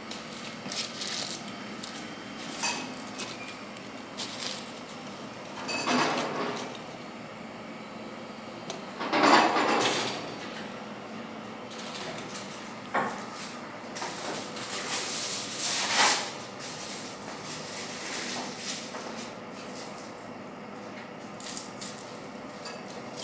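Items being loaded into a stainless steel wire autoclave basket: scattered clinks and knocks of metal and glass, with a few longer noisy scrapes, the loudest about nine seconds in.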